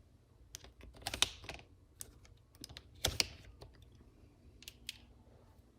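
Irregular light clicks and taps, with louder clusters of knocks about one second and three seconds in.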